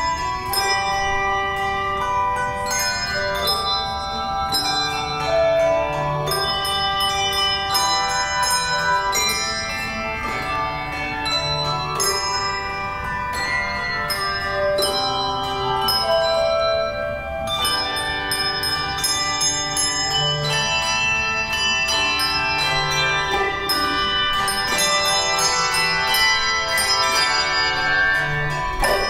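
Handbell choir playing a piece: many bell notes struck together in chords, ringing on and overlapping as new chords follow.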